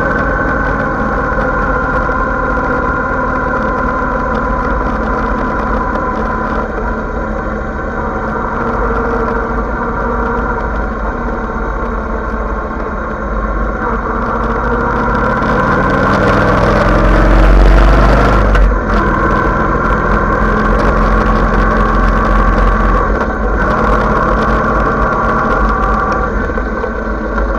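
Motorcycle engine running steadily under way, heard from the rider's position. A little past the middle it rises in pitch and gets louder as it accelerates, then drops off sharply before settling back to a steady run.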